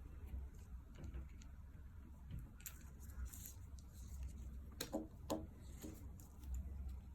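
Faint handling clicks and rustles of an Apple Watch band being worked into the watch's band slot, with two short squeaks about five seconds in, over a low steady hum.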